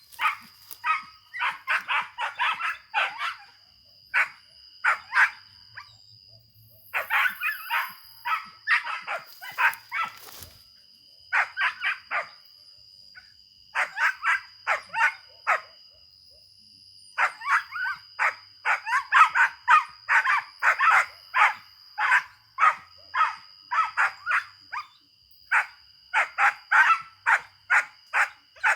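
Dog barking fast and high, several barks a second, in bouts of a few seconds broken by short pauses: a dog baying.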